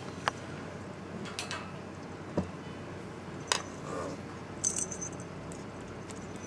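Sparse light clicks and metallic rattles from a wire cat cage being handled, with a brief high jingle about four and a half seconds in.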